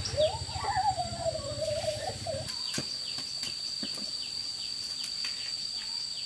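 Outdoor rural ambience: short high chirping calls repeat about three times a second throughout, and a steady high-pitched drone joins them about two and a half seconds in. Before that, a wavering hum-like vocal sound rises and falls.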